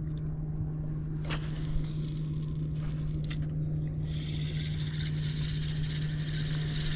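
Boat motor running with a steady low hum. A hiss joins it about four seconds in, with a couple of light clicks.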